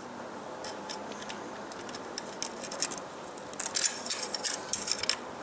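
Metal tongs clinking and scraping against a crucible in a run of light metallic clicks, busiest from about three and a half seconds in.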